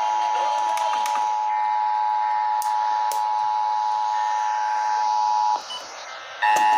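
Emergency Alert System attention signal: a steady two-tone alert tone (853 and 960 Hz sounded together) heralding a Required Monthly Test. It cuts off about five and a half seconds in, then after a short gap starts again just before the end.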